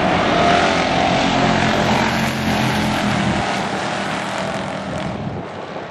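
A pack of short-track stock cars racing past with their V8 engines running together. The sound is loud at first, then fades about three and a half seconds in as the pack moves away.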